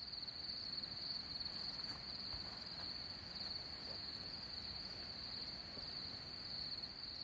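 Crickets trilling in a continuous high-pitched chorus over a faint low background hiss.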